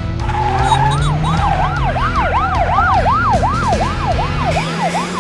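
Cartoon police car siren wailing in quick rising-and-falling sweeps, about three a second.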